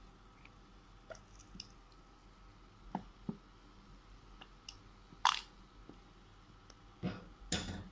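Plastic squeeze bottle of tomato ketchup being squeezed into a pot of sauce: a few scattered squelches and clicks, the loudest about five seconds in and two more near the end.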